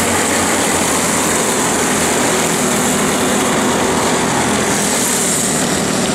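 Several small racing go-kart engines running steadily at speed as a pack of karts laps the track.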